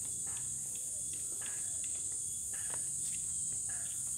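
A steady high-pitched insect chorus, with scattered light rustles and ticks.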